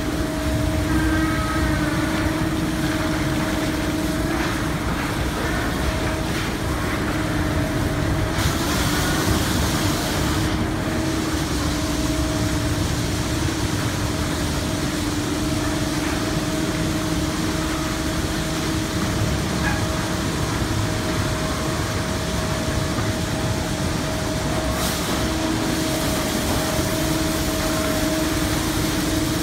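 Hydraulic cloth-friction car wash tunnel running: rotating cloth brushes slapping the car and water spraying over a steady machinery hum. A louder hiss comes in about eight seconds in for a couple of seconds and again near the end.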